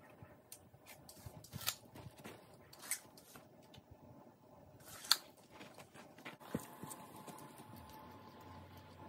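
A few faint, sharp clicks and knocks about a second apart as a tape measure is handled against wooden posts, the loudest about five seconds in. About two-thirds of the way through they give way to a faint steady high hum.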